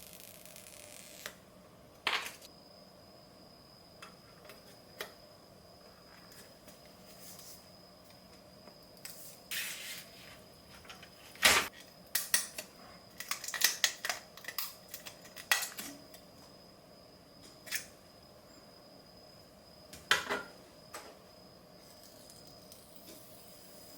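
Scattered clicks, taps and short rustles of small hard plastic items being handled, with a cluster of quick clicks in the middle and one sharp knock just before it.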